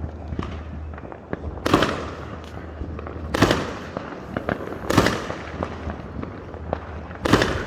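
Fireworks going off from several places at once: four loud bangs about one and a half to two seconds apart, with smaller pops and crackles in between.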